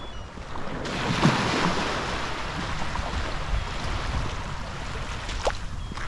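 Sea surf on the shore: a wave breaks about a second in and washes up the beach as a long hiss, with wind rumbling on the microphone.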